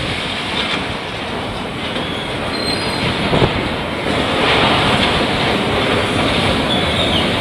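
Demolition machinery tearing and crushing corrugated metal sheeting and steel framing: a dense grinding clatter with short metal screeches and a crash about three and a half seconds in, growing a little louder toward the end.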